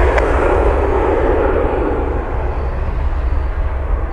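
Airbus A320neo's geared turbofan engines at takeoff power during the runway roll: a steady jet engine sound over a heavy low rumble, easing slightly towards the end.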